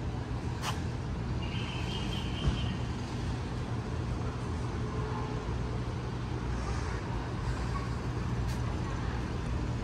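Steady low hum of city traffic, with a single short knock about two and a half seconds in.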